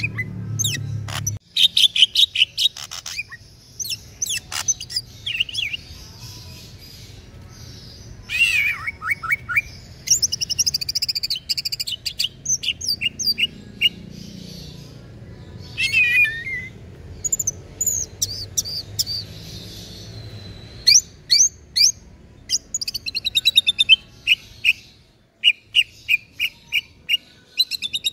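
Male cucak ijo (green leafbird) singing loudly. It gives a varied song of sharp chirps, whistled glides and rapid trills in bursts with short pauses, and near the end a run of short repeated notes about three or four a second.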